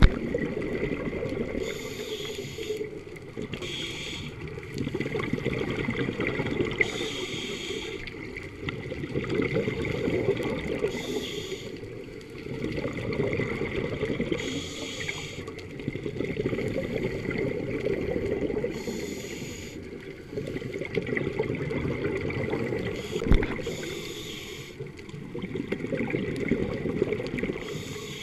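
Scuba diver breathing through a regulator underwater: a hiss on each breath and a bubbling gurgle of exhaled air, repeating about every four seconds.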